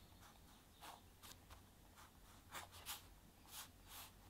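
Fine-tipped pen scratching on paper in about six short, separate strokes while drawing sketch lines; faint.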